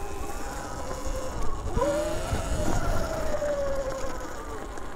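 Electric off-road vehicle motor whining; the whine rises in pitch about two seconds in, holds, then slowly falls away.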